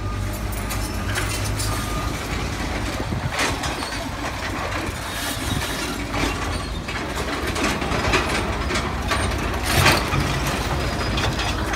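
Diesel engines of Komatsu hydraulic excavators running as they work in concrete rubble, with scattered clanks and knocks of the bucket and broken concrete, the loudest close to the end.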